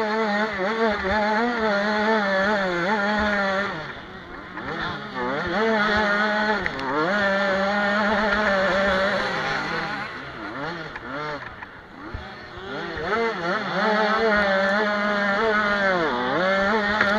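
Motocross bike engine heard close up from on board, revving hard as it accelerates and dropping in pitch when the throttle is shut, several times over. It eases off about four seconds in and again around ten to twelve seconds in, then climbs back up.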